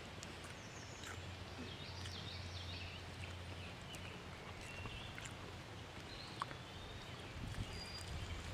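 Faint bird calls, short high wavering chirps scattered through, over a low steady hum of background noise.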